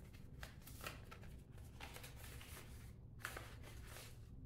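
Small paper seed envelope being handled and opened, crinkling and rustling faintly in several short bursts.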